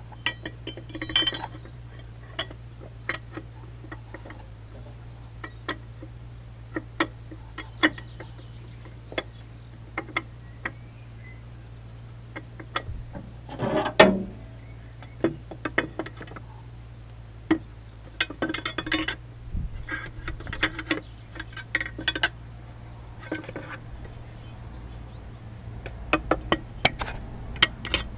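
Steel spanners clinking and tapping irregularly against the cooling-fan hub of a Land Rover Defender TD5 engine as the special TD5 fan spanners are fitted to undo the fan, the loudest knock about halfway through. A steady low hum runs underneath.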